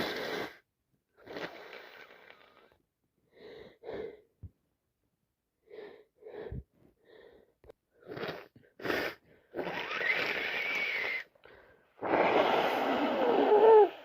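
A person with a heavy wet cold sniffing and breathing through a congested nose in short bursts, then blowing the nose hard twice near the end, long blows with a wavering whistle, the second the loudest.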